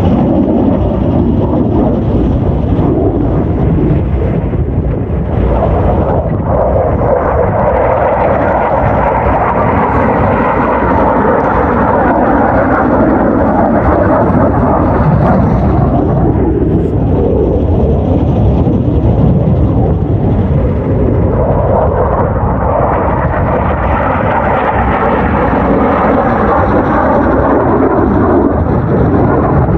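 Jet aircraft flying overhead, a loud rushing roar that swells, eases off about two-thirds of the way through, then builds again.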